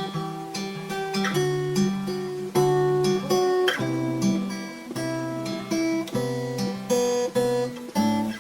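Recorded music: an acoustic guitar picking a repeating pattern of chords, one note ringing into the next, with no singing yet.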